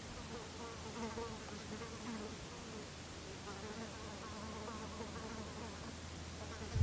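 A flying insect buzzing faintly, its pitch wavering up and down as it moves about.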